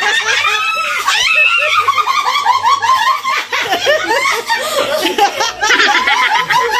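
A group of people laughing together, several voices overlapping without a break.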